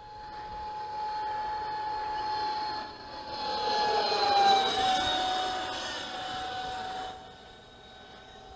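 Radio-controlled BAE Hawk model jet making a close flypast: a steady whine with a rushing whoosh that swells as it goes by about four seconds in, the pitch dropping slightly as it passes, then fading away.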